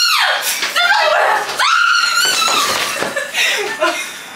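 A woman shrieking in several high-pitched screams, the longest about halfway through, in fright at a fake lizard, with laughter mixed in.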